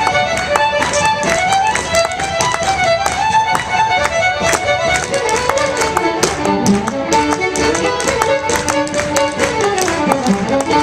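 A fiddle playing a quick traditional Celtic dance tune, with step-dance footwork tapping sharply on a wooden floor in time with it.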